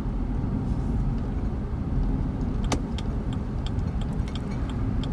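Car cabin noise while driving: a steady low rumble of engine and tyres. There is one sharp click about two and a half seconds in, then light ticking near the end.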